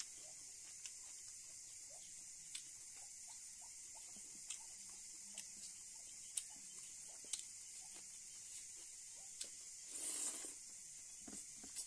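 Faint eating-by-hand sounds: scattered soft clicks and squelches of fingers mixing rice in a plastic bowl, with a short louder smacking noise about ten seconds in as a mouthful goes in.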